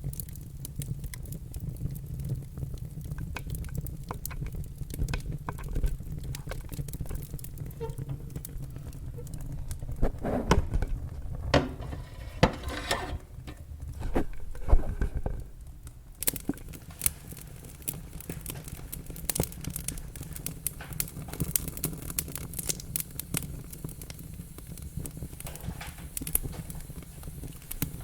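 Wood fire burning in a fireplace: a steady low rumble of flames under constant crackling and sharp pops of the logs, with a busier run of louder pops and hissing about halfway through.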